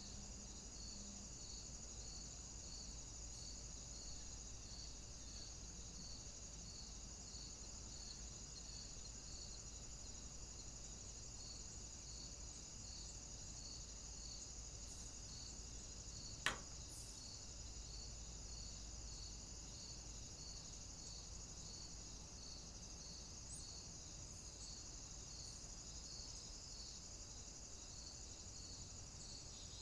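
Faint steady high hiss of insects with a regular chirp a little more than once a second, like crickets. One sharp click about halfway through is the loudest sound.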